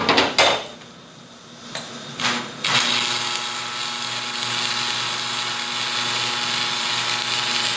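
Stick (shielded metal arc) welding on steel: a couple of sharp cracks near the start, then from about three seconds in the arc burns with a steady crackling hiss over a low hum, laying a tack weld that holds the new steel centre in the wheel rim. The sound cuts off suddenly at the end.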